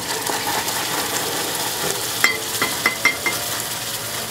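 Bubbling butter and brown-sugar caramel sizzling in a stainless saucepan as cold cream is poured in, with a spatula stirring and scraping through it. A few short clinks come about halfway through.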